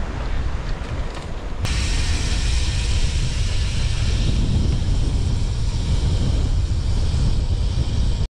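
Steady rush of wind over the microphone, with a deep rumble and no voices, as of a camera carried on a moving bicycle. About one and a half seconds in it cuts abruptly to a hissier, brighter rush that runs on until a sudden cut near the end.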